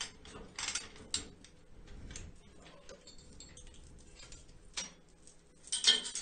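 Hand-operated chain hoist clicking and its chain rattling in scattered, irregular ticks while lowering a Caterpillar D6 clutch, with the loudest clicks near the end.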